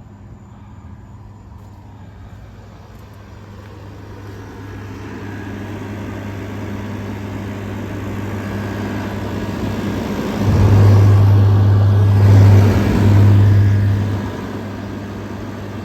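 Vissani 6,000 BTU wall air conditioner running: a steady low compressor hum under the rush of its fan. The sound swells over several seconds and is loudest for about three seconds near the middle, then eases back.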